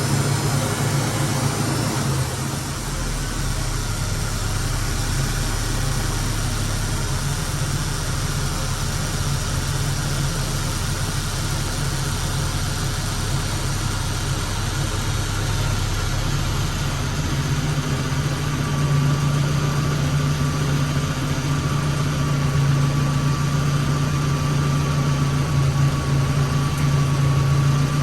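1992 Suzuki Sidekick's four-cylinder engine idling steadily. About two-thirds of the way in, the engine note grows a little stronger and a faint, steady high whine comes in over it.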